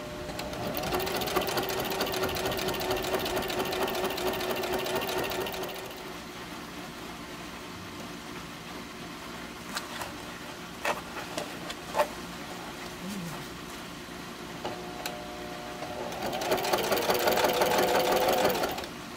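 Sewing machine stitching in two runs, one of about five seconds and a shorter one near the end, with a few light clicks in the quieter pause between them.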